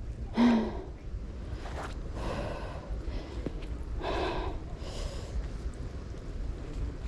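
A person breathing hard after heavy exertion. A loud gasp with a short falling voice about half a second in is followed by several heavier breaths, over a steady low rumble.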